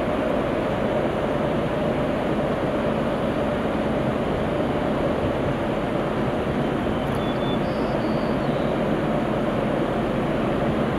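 Distant freight train with diesel locomotives running, a steady low rumble blended with the rush of the river.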